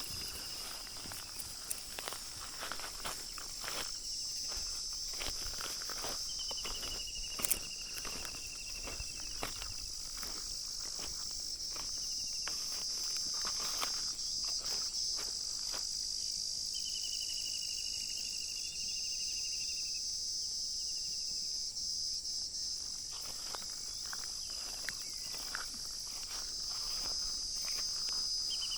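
Steady high-pitched insect chorus, with a few falling trills lasting two to three seconds each and scattered clicks and rustles throughout.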